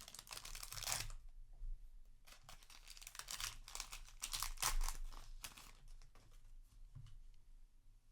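Foil wrapper of a Yu-Gi-Oh! booster pack being torn open and crinkled. The crackling comes in two spells, in the first second and again from about two to five and a half seconds in, then dies down to fainter rustling.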